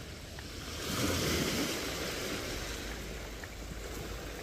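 Small waves breaking and washing onto a shingle beach: a steady rushing that swells about a second in, with a low rumble of wind on the microphone.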